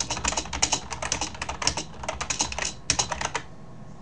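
Typing on a computer keyboard: a fast run of key clicks with a brief pause, stopping about three and a half seconds in.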